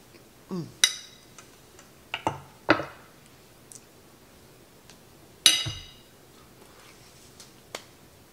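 Metal fork clinking against a ceramic dinner plate in about five sharp, ringing clicks spread over several seconds, the loudest about five and a half seconds in.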